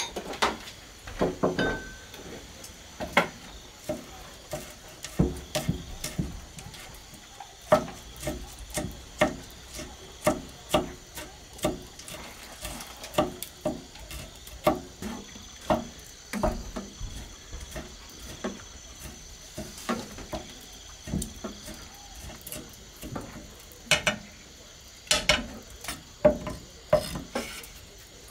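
A cleaver chopping chillies on a thick round wooden chopping board: a long run of short, sharp knocks, one or two a second, uneven in spacing and strength.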